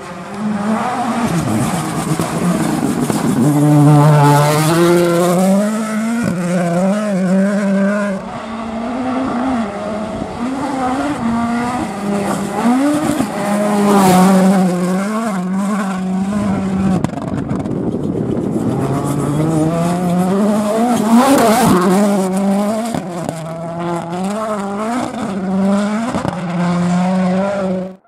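Ford Puma Rally1 WRC car's 1.6-litre turbocharged four-cylinder engine running hard on a gravel stage. Its revs rise and fall again and again through gear changes and braking, and it swells loudest several times as it passes close.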